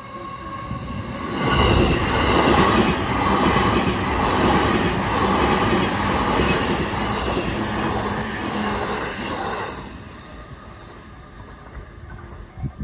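JR Nambu Line E233-series electric train passing at close range: a loud rush of wheels on the rails that builds about a second and a half in, holds for about eight seconds, then drops away suddenly as the train clears.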